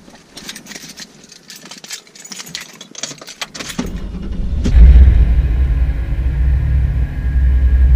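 Keys jangling at the ignition of a pickup truck, then about four seconds in the engine cranks briefly and starts, settling into a steady low running sound.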